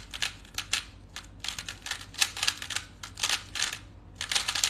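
Rubik's speedcube being turned at speed during a timed solve: rapid clusters of plastic clicks and clacks from fast finger turns, in quick bursts broken by brief pauses.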